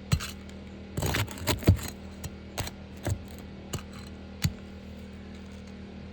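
Sharp metallic clicks and taps, about eight in four and a half seconds, with a brief scraping rattle about a second in: hand tools working loose the nails of a damaged three-tab roof shingle.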